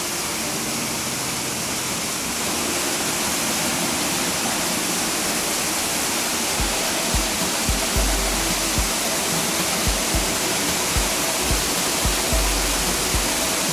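Waterfall and shallow stream: a steady rush of falling water that grows slightly louder a few seconds in, with a run of low bumps on the microphone from about halfway through.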